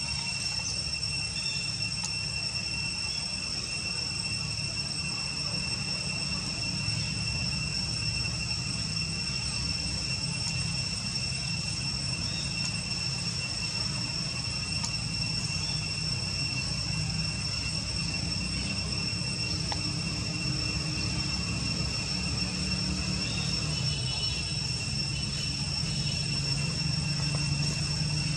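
Insects droning steadily at one high pitch, over a constant low rumble.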